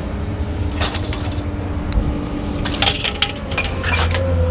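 Scrap metal clanking and clattering as pieces are pulled from a pile and handled, with several sharp knocks, over a steady low hum.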